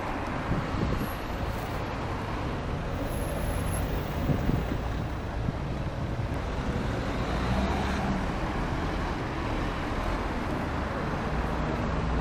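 Road traffic on a city street: cars running and moving, a steady rumble without any single standout event.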